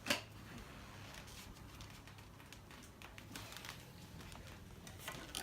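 Faint handling of computer parts and cables: a sharp click just after the start, then scattered light clicks and rustles over a low steady hum.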